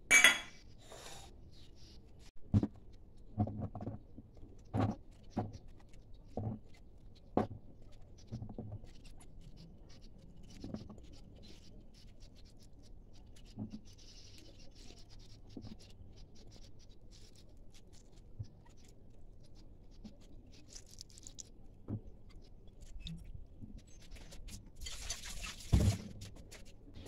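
Handling sounds as cut bitter gourd strips are spread from a glass bowl onto a cloth-lined tray. There is a sharp click at the start, then a string of soft, separate knocks and taps, and a louder rustle near the end.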